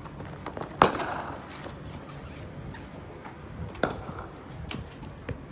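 Cricket bat striking the ball in net practice: two sharp hits about three seconds apart, the first the louder, with a few fainter knocks near the end and a low steady hum underneath.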